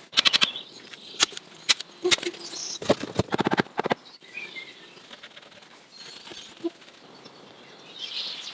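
Sharp clicks and knocks of small pieces of wood being handled, some in quick runs of several, over the first half. Faint bird chirps in the quieter second half.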